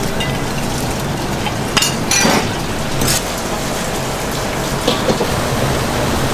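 Steady hiss of a restaurant kitchen, with several sharp clatters of a knife and dishes as fried chicken is laid onto a bowl on a plate.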